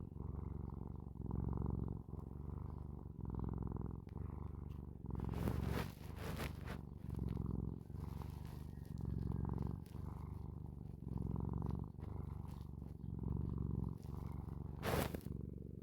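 Domestic cat purring steadily, the purr swelling and easing with each breath about every two seconds. A few brief rustling taps come around the sixth second, and a sharper one near the end.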